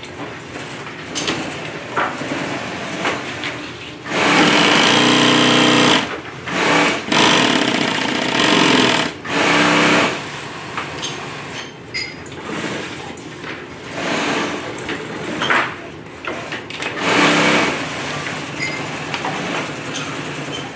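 Industrial sewing machine stitching fabric in short runs: a long run about four seconds in, three shorter ones between six and ten seconds, and another near seventeen seconds, with quieter clicks between runs as the work is repositioned.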